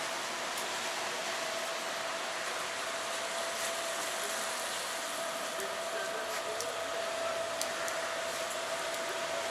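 Steady hiss of rain on a wet city street, with a faint steady whine underneath.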